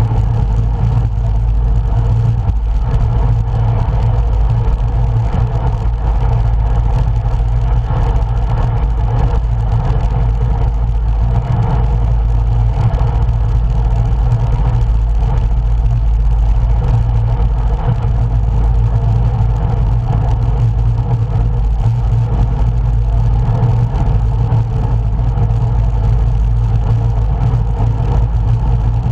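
Steady low rumble of wind and road noise on a camera riding along on a road bicycle.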